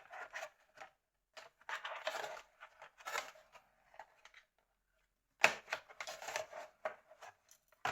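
Cardboard phone box and a charger being handled and fitted together: scattered rustles, taps and light clicks, with one sharper knock about five and a half seconds in.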